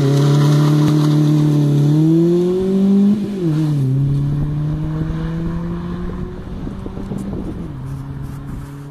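Vauxhall Corsa C 1.2 Twinport four-cylinder petrol engine accelerating hard past, revs climbing, then a sharp drop in revs about three seconds in as it changes gear. The engine note then holds and fades as the car pulls away.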